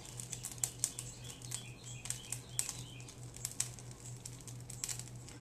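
Metal kitchen tongs clicking and tapping irregularly against a plastic bowl and a skillet while picking up and dropping chicken and pepper fajita filling.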